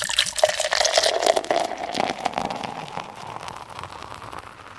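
Beer pouring into a glass with a dense fizzing crackle. The pouring tone rises slightly as the glass fills, and the sound fades toward the end.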